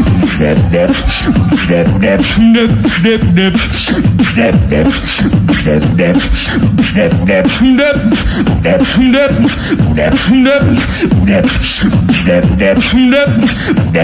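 Solo human beatboxing: a fast, steady beat of mouth-made kicks, snares and hi-hat clicks over a hummed bass line that shifts in pitch, with a wavering high trill now and then.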